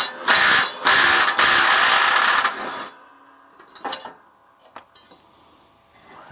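Impact wrench hammering for about two seconds, loosening a bolt under a zero-turn mower's deck. It is followed by a couple of light metallic clinks as the bolt and washer are handled.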